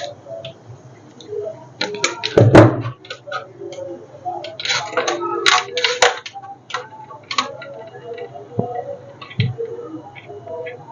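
Irregular clicks, taps and knocks of small plastic and metal parts being handled while a blender's power cord is worked on. No motor is running.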